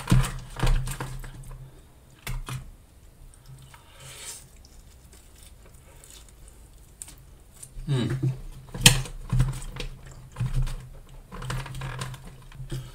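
Close-miked eating: a white plastic fork scraping and clicking in an aluminium foil tray of gravy-soaked loaded chips, and wet chewing with mouth clicks. A quieter stretch in the middle, then busy irregular clicking from about eight seconds in, with one sharp louder click.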